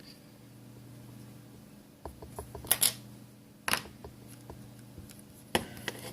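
Small metal repair tools clicking and tapping against a phone's parts and the work surface, a few sharp clicks starting about two seconds in, over a steady low electrical hum.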